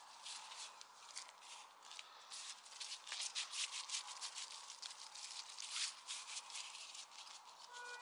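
Gloved hands working dough in a bowl and rolling it into a ball: a quick run of soft rubbing and scraping strokes, busiest in the middle.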